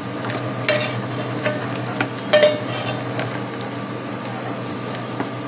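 Metal ladle scraping and clinking against a wok as fried vegetables are tipped out of it, a handful of sharp ringing clinks in the first three seconds or so, over a steady low hum.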